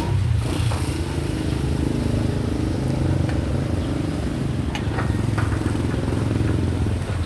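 An engine running steadily at a low pitch, with a few light clicks.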